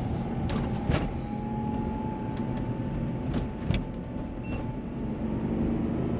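Renault Triber's 1.0-litre three-cylinder petrol car driving along with steady road and engine rumble. A faint whine slowly rises in pitch and then holds, and there are a few light knocks.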